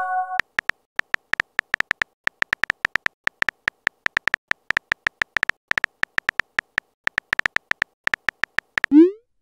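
Phone keyboard typing clicks, a quick irregular run of light ticks at about six a second as a text message is typed. It opens with the tail of a short multi-note chime and ends with a quick rising swoop, the message-send sound.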